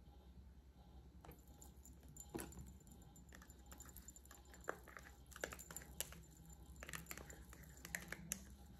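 Faint, irregular clicks and taps of a plastic fork scraping salad dressing out of a thin plastic portion cup.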